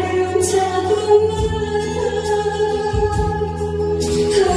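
A woman singing a Korean trot song into a microphone over instrumental accompaniment, holding one long note until near the end.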